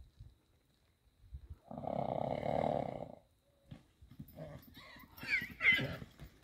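A horse blows one long, loud snort through its nostrils about two seconds in: the excited, whistling-kettle snort of a horse on high alert. Near the end come hoofbeats on soft ground and shorter snorts as it trots out.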